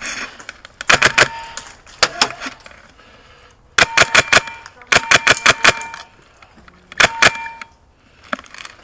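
Airsoft gun firing in five short rapid bursts of sharp clicks, about ten shots a second.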